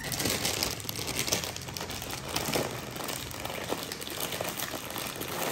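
Plastic bag of sliced bread crinkling and crackling as it is handled and its twisted top worked open.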